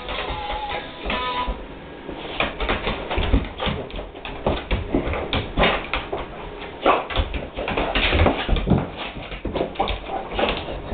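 Pit bull whimpering with excitement while being greeted and petted, amid many short knocks and scuffles.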